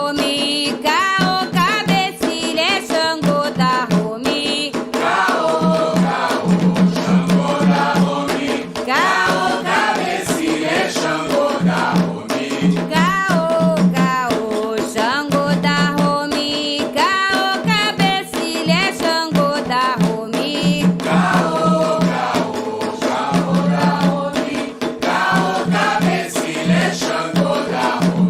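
Candomblé chant for Xangô: voices singing over hand drums and percussion playing a steady, repeating rhythm.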